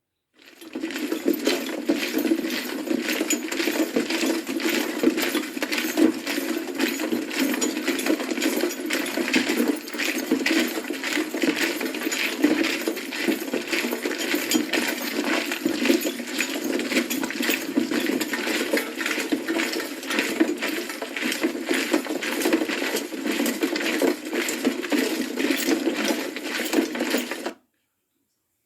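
Dense, continuous clinking and rattling, many small hard objects knocking together, that starts abruptly and cuts off near the end.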